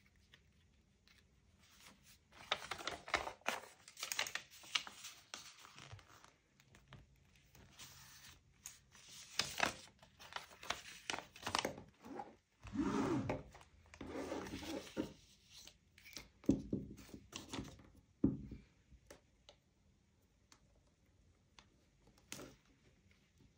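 Paper being handled for journaling, with crinkling and tearing in several bouts of a few seconds each, then only a few light taps near the end.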